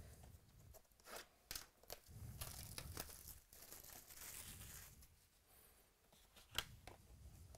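Plastic shrink wrap being torn and crumpled off a sealed trading-card box, an irregular crackling with scattered clicks, and one sharp click near the end as the loudest sound.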